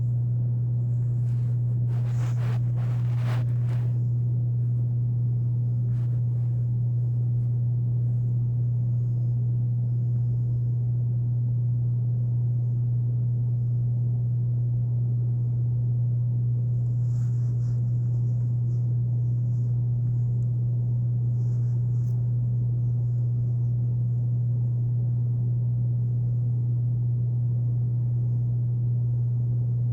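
Room air conditioner running with a steady low hum that drowns out the sleeper's snoring. A few faint rustles, most marked about two to four seconds in.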